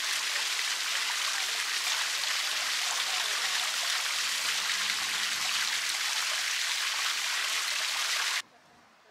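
Stone ball fountain: water pouring over a large polished stone sphere and splashing into its low stone base, a steady splashing that cuts off suddenly near the end.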